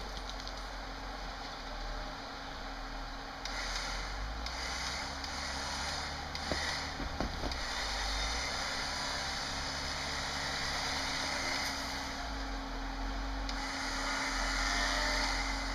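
Recon 10.5K electric winch running under load, reeling in its synthetic rope to pull a 2012 Jeep Wrangler JKU Rubicon up rock ledges: a steady mechanical hum.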